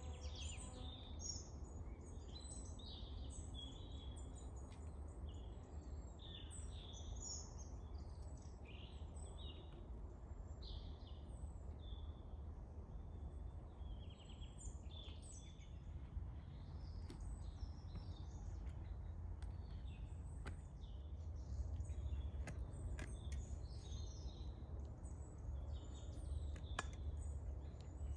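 Many small birds chirping and calling throughout, over a steady low rumble of outdoor ambience. A few faint clicks come in the second half.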